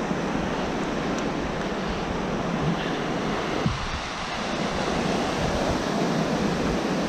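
Sea surf washing onto the beach, with wind blowing across the microphone: a steady rushing noise.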